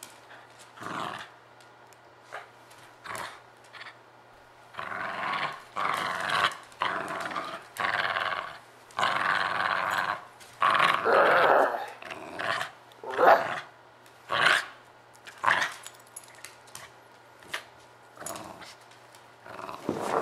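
Small dog growling in play while tugging on a rope toy: a few short growls, then a long run of rough growls through the middle, then shorter separate growls.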